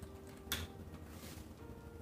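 A single sharp computer keyboard keystroke about half a second in, over faint background music.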